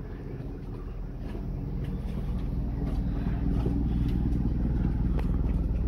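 Low rumble of a military helicopter approaching overhead, growing steadily louder.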